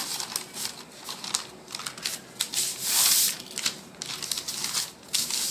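Cloth being folded and smoothed flat by hand on a table: a series of short rustling and brushing strokes, the longest and loudest about three seconds in.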